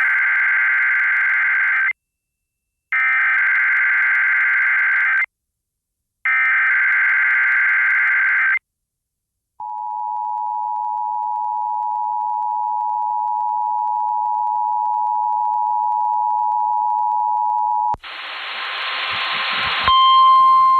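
Emergency Alert System broadcast of a North Carolina Required Monthly Test: three screechy SAME digital header bursts of about two seconds each, a second apart. After a brief gap comes the two-tone EAS attention signal, held steady for about eight seconds. Near the end there is a short burst of hiss, then a steady higher tone begins.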